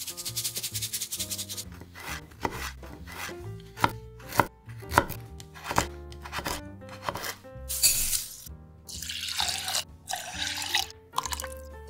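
Kitchen knife cutting a sweet potato into thick slices on a wooden cutting board, a series of sharp knocks, one per cut, over background music. Water drips from a colander of rinsed rice at the start, and water is poured into a pot of rice near the end.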